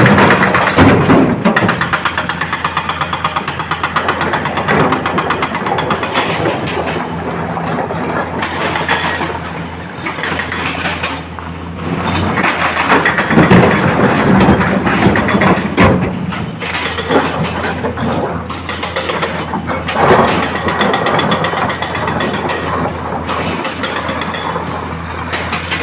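Excavator's diesel engine running steadily under working load, with irregular heavy knocks and clatter throughout and a few louder surges.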